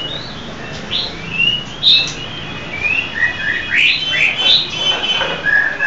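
Caged white-rumped shama singing: a varied run of clear, whistled phrases, ending in a series of short, even notes.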